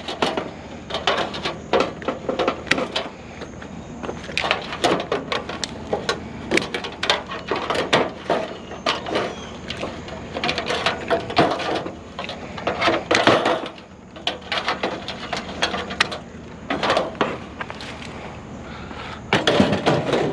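Irregular knocks, clunks and clattering of hard junk items being handled, dropped and piled onto a load, at several impacts a second in busy stretches.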